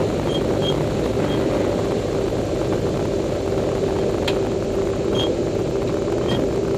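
Pitts S-2B's six-cylinder Lycoming engine and propeller running steadily at low power during the ground roll, heard from inside the open-framed cockpit.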